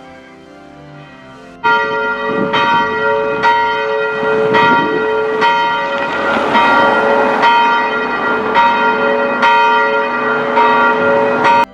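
A single church bell rung by pulling its rope, striking about once a second so that each stroke rings into the next; it starts abruptly a couple of seconds in and cuts off abruptly near the end. Soft hymn music plays before the bell comes in.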